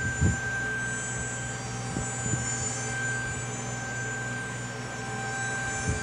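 A steady machine drone with a constant high whine over a low hum, holding one pitch without rising or falling. A few short low thumps, the loudest just after the start.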